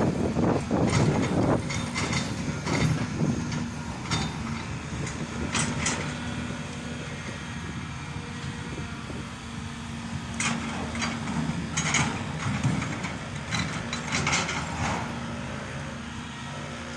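Caterpillar hydraulic excavators working: a steady diesel engine drone with a held hum, broken by scattered knocks and clanks, most of them in the first few seconds.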